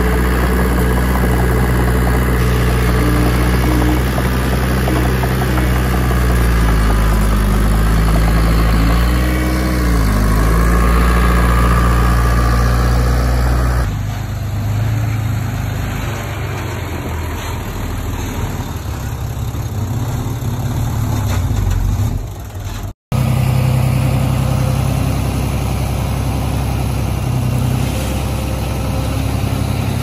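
Heavy diesel earthmoving machinery running under load: a steady, loud engine note with a brief rise and fall in pitch about ten seconds in. Just under halfway through the sound changes abruptly, and it drops out for a moment a little past three quarters.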